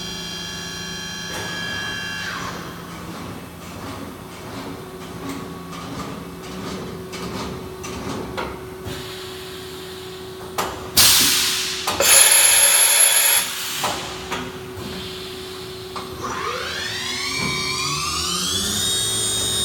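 Hartford Mighty Viper VMC-2100 CNC vertical machining center running a program. Its spindle whine cuts off about two seconds in, and a stretch of light clicks and ticks follows. A loud burst of hissing and clatter comes around the middle, and near the end the spindle spins up with a rising whine that settles at a steady higher pitch.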